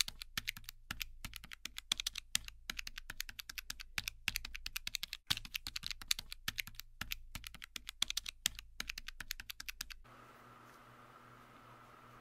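Rapid fingernail taps on a smartphone's glass touchscreen, punching numbers into a calculator, several taps a second in quick runs with short pauses. The tapping stops about ten seconds in, leaving a faint steady hum.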